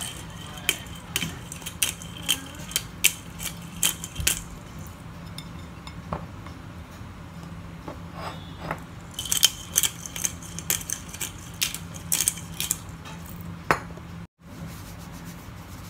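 Hand-twisted pepper grinder clicking in quick runs: a short run in the first four seconds and a denser one from about nine to thirteen seconds in, over a steady low hum.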